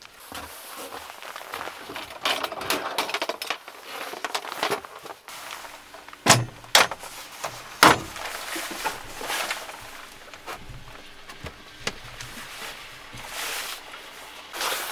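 Rustling and clattering of a wooden pegboard tool panel being handled and fitted against a van's interior side wall, with a few sharp knocks about six to eight seconds in as it goes into place.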